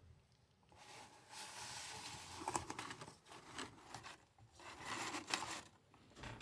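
A wallet and its packaging being handled: several bursts of rustling, crinkling and scraping, with a few sharp clicks.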